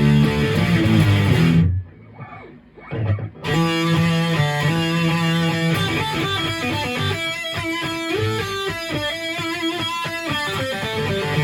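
Maverick Chaos 2 HT electric guitar played through a Yerasov Brown Creature Distortion pedal: chords cut off sharply a couple of seconds in, a few soft notes follow, then the playing picks up again with held notes and single-note melodic runs.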